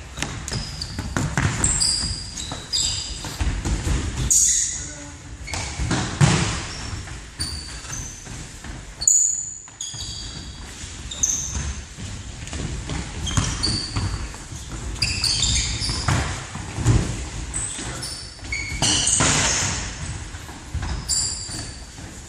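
Indoor football in a sports hall. Sneakers squeak briefly and often on the hall floor, and the ball thuds off feet and the floor, echoing in the large hall.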